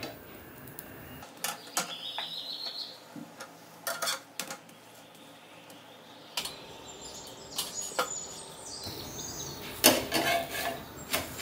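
Metal spatula knocking and scraping on a nonstick tawa as a chapati is flipped and pressed, in scattered taps with a denser run of knocks near the end.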